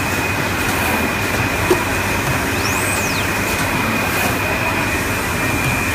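Roll-to-roll screen printing machine running through its print cycle: a steady mechanical hum with a constant high tone, and a high whine that rises and falls about every three and a half seconds as the squeegee carriage and web feed stroke.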